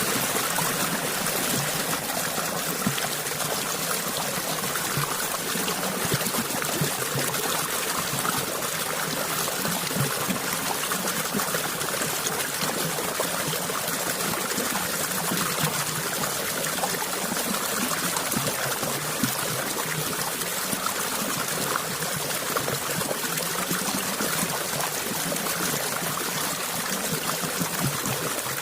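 Running water flowing and trickling steadily, an even splashing wash with no let-up.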